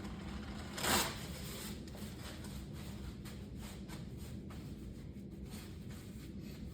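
Rustling and handling noises: a brief swish about a second in, then faint scattered rubs and clicks over a steady low room hum.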